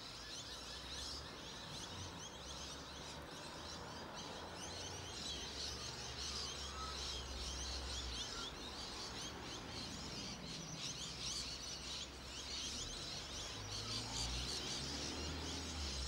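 A flock of lorikeets clamouring: many shrill, overlapping screeches and chatters, unbroken throughout.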